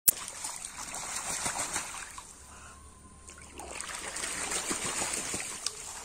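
Muscovy ducks bathing, splashing the water with wings and bodies in two bouts with a quieter lull between.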